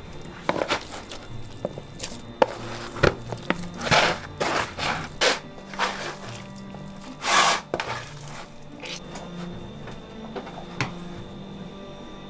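Household handling noises: scattered clicks, knocks and short rustles, the loudest about seven seconds in, over quiet background music.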